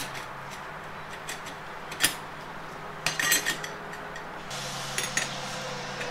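Light metallic clinks as clutch friction discs and steel plates are set one by one into the clutch drum of an A4RA automatic transaxle. There is a single clink about two seconds in, a quick cluster around three seconds and another near five seconds, over a faint steady low hum.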